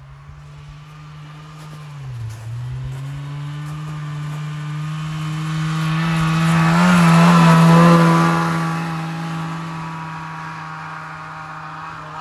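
Vintage two-stroke snowmobile engine with a freshly rebuilt carburetor, running at speed. Its pitch dips briefly about two seconds in. It grows loudest as the sled passes close around the middle, then fades as it rides away.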